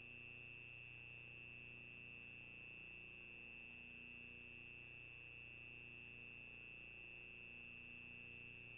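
Near silence: the steady background noise of a CCTV camera's microphone, a constant high-pitched electronic whine over a faint low hum.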